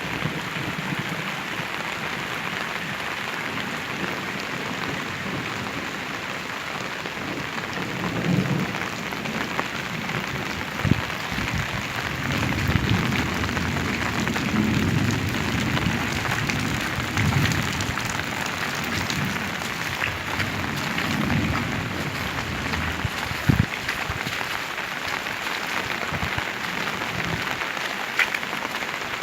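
Heavy rain pouring steadily, with low rumbling swells through the middle and a few sharp knocks of drops striking something close by.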